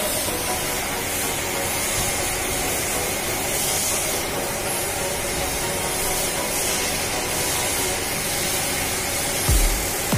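Steady hissing noise with faint humming tones underneath, like air or spray. Music with a heavy bass beat comes in near the end.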